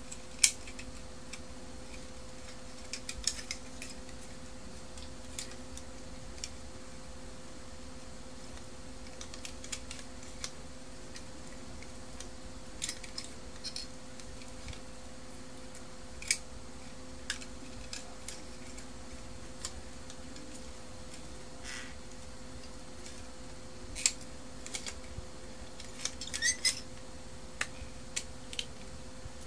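Scattered plastic clicks and taps as the main motor and gear bracket of a Brother DCP-1615NW laser printer is handled and turned over, over a steady low hum. The sharpest click comes about half a second in, with another near the end and a quick cluster just before it.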